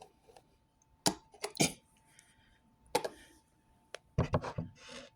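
Scattered knocks and clinks of a bowl and dishes being handled on a kitchen counter, a few sharp taps with a short cluster near the end.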